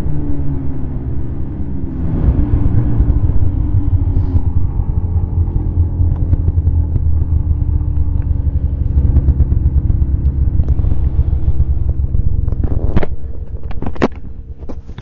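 Snowmobile engine running under way. Its pitch dips, climbs again and holds steady, then falls off near the end with a few sharp knocks.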